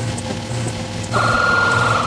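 Background music with a steady low beat. About halfway through, a loud electronic sound effect cuts in: a harsh, rapidly pulsing tone that lasts about a second.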